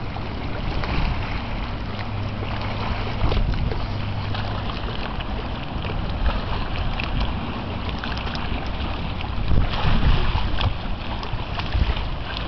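Wind blowing across the microphone over the steady low hum of a passing cargo freighter's engine.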